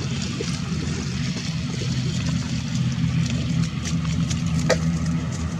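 ATR 72 turboprop airliner taxiing, its engines and propellers giving a steady low hum.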